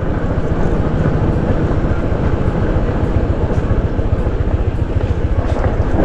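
Motorcycle engine running steadily while riding, with wind rushing over the microphone.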